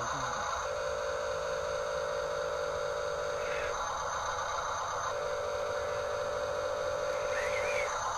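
Small electric motors and plastic gearboxes of Huina RC construction models whirring. The sound switches back and forth every second or few between a rougher whir and a steadier whine.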